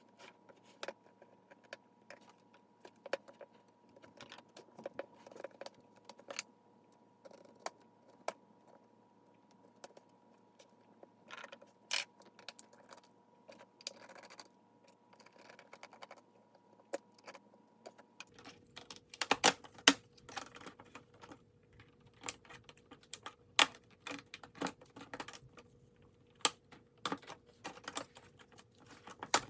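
Scattered small clicks and taps of a screwdriver and the plastic screen frame of a ThinkPad T41 laptop being worked during disassembly. The taps come in irregular clusters and grow busier and louder in the second half.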